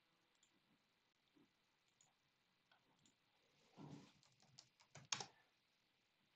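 Faint computer keyboard typing: a few scattered keystrokes and clicks in the second half, the sharpest about five seconds in, with near silence before.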